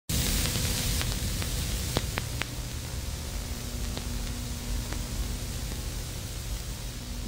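Steady hiss and static from VHS videotape playback, with a low hum underneath. A few sharp clicks break in, three in quick succession about two seconds in and single ones around four and five seconds.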